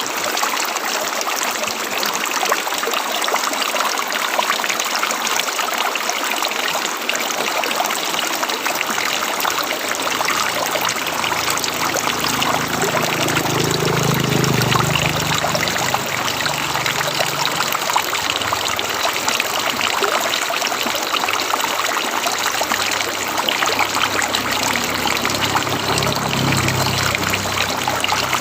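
River water flowing and trickling in a steady, even wash of sound, with a low rumble swelling up briefly around the middle and again near the end.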